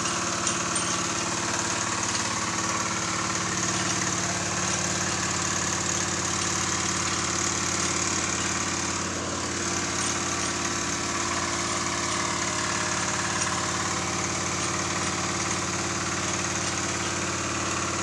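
Small portable petrol water pump engine running steadily, driving water through a hose into the drill pipe of a hand-drilled borehole.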